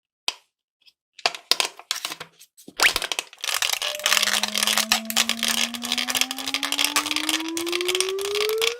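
Frozen mesh stress ball crackling and crunching as it is worked: scattered sharp clicks at first, thickening into a dense, continuous crackle. About halfway in, a smooth whistle-like tone starts and glides slowly upward.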